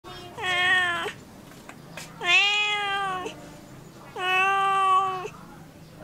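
Domestic cat meowing: three long, drawn-out meows of about a second each, each holding a steady pitch, about two seconds apart.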